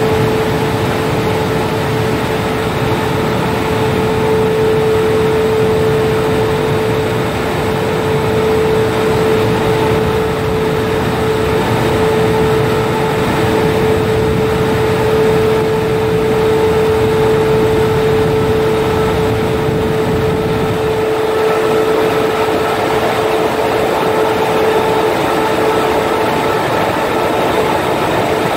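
Rollover car wash's TURBO DRY blower dryer running over a car: a loud, steady rush of air with a steady whine.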